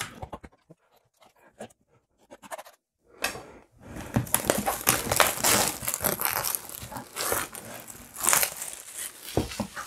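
Cardboard headphone box and its wrapping handled: a few light taps and scrapes, then from about three seconds in a stretch of continuous rustling and crinkling as the packaging is unwrapped.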